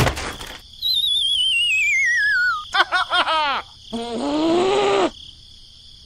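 Cartoon sound effects for an animated figure: a thump as it tumbles, then a long falling whistle that wobbles as it drops. A burst of quick squeaky chirps follows about three seconds in, then a short squeaky character voice that rises and falls.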